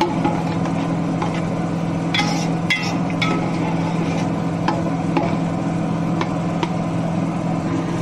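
A spoon stirring rice and water in a cooking pot, knocking against the pot now and then, over a steady low hum.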